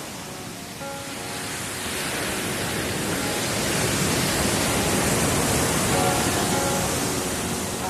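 Electronic background music: a wash of noise like breaking surf swells up and fades back over faint sustained synth notes.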